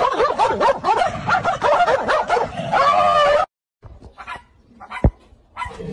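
A dog whining and yowling in quick, wavering cries that end in a longer held wail about three seconds in. The sound then cuts off abruptly, and a few scattered knocks follow, with one sharp thump near the end.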